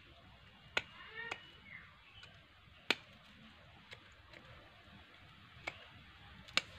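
Hand pruning shears snipping side branches off a Buddhist pine (lohansung) air-layer: about six sharp snips, irregularly spaced a second or so apart. A brief faint animal call comes about a second in.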